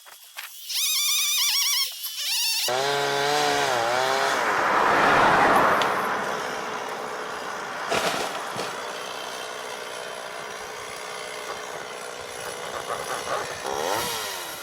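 Two-stroke chainsaw running at high revs, its pitch wavering up and down, then dropping lower. A loud rush of noise peaks about five seconds in and a sharp knock comes near eight seconds, before the saw runs on more steadily.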